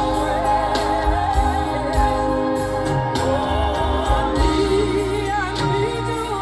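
Live gospel music: a singer's wavering, ornamented vocal line over a band with steady bass and regular drum beats.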